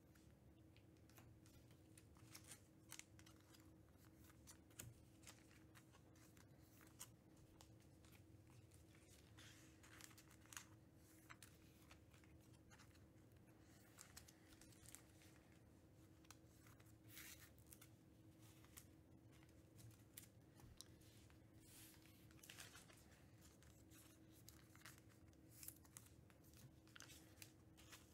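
Near silence with faint, scattered crinkles and ticks of trading-card pack wrappers and cards being handled, over a faint steady hum.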